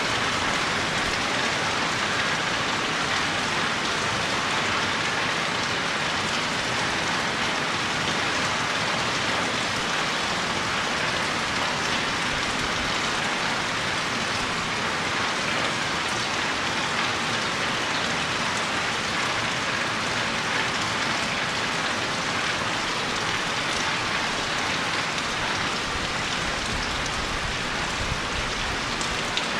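Steady, even rain falling and pattering on surfaces.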